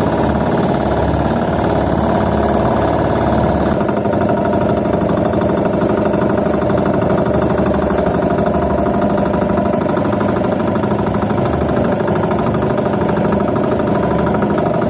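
Small fishing boat's engine running steadily while the boat is under way.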